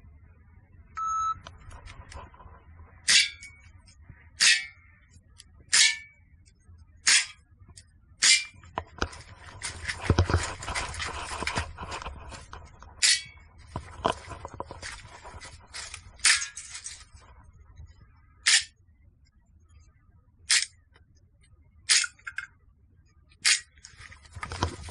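A shot-timer start beep about a second in, then about a dozen sharp cracks from an airsoft gun firing at tin can targets, spaced one to two seconds apart, some followed by a short metallic ring. A stretch of rustling noise falls around ten to twelve seconds in.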